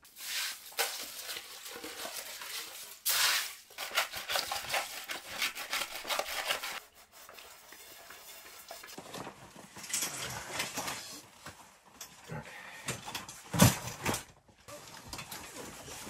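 Irregular clinking, scraping and rustling of dishes and cutlery during a meal, with one sharper knock near the end.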